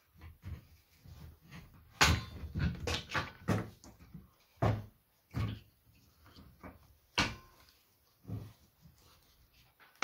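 Irregular knocks and clicks of a plastic handle, metal bolts and grinder parts being handled and set down on wooden boards, the loudest knock about two seconds in.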